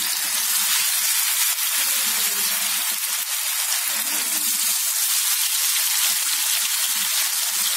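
Masala-coated pomfret pieces sizzling steadily as they shallow-fry in hot oil on a cast-iron dosa tawa, with more pieces being laid into the oil.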